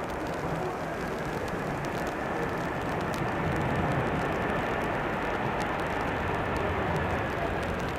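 Jet airliner engines in reverse thrust on the landing roll: a broad rushing noise with a faint high whine, swelling to a peak about four seconds in and easing slightly after.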